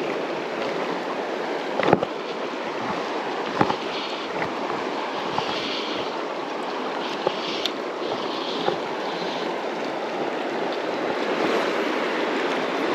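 Flowing river water rushing steadily, with a few short sharp clicks or knocks.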